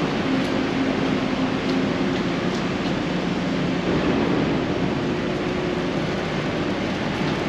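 Steady city street noise: a continuous rush of passing traffic with a low mechanical hum underneath.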